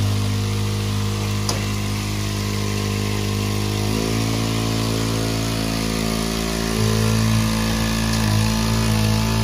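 Small Honda petrol engine of a WX10 water pump running steadily. Its speed steps up about four seconds in and shifts again near the end. Under it is the hiss of water spraying from the bowser's rear splash plate.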